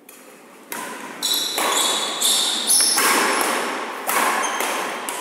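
Badminton rally on a wooden indoor court: after a quiet start, a quick series of sharp racket-on-shuttlecock hits and shoe squeaks, ringing in the hall's echo.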